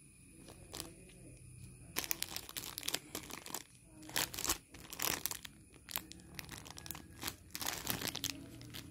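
Small plastic Haribo Quaxi sweets bag crinkling as it is handled and torn open by hand, in several bursts of crackling starting about two seconds in.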